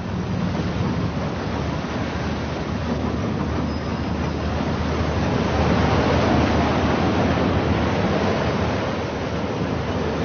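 A ship under way: a steady low engine hum under a rush of water and wind noise that swells about halfway through.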